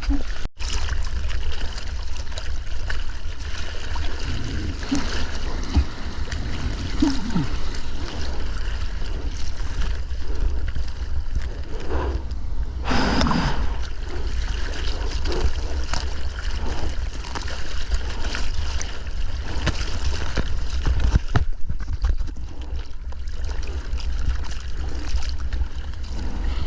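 Seawater splashing and sloshing around a surfer on his board in heavy surf, picked up close by a GoPro, over a constant low rumble.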